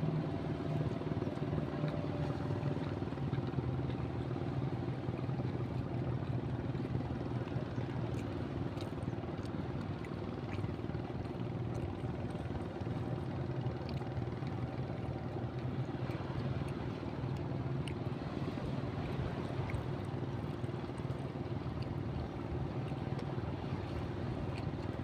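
Fishing boat's engine running at a steady speed, an even drone that holds one pitch.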